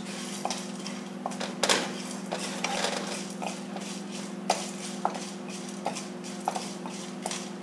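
A spoon stirring red chilies and asafoetida roasting in a pan: irregular taps and scrapes against the pan, heaviest about a second and a half in, with a steady low hum underneath.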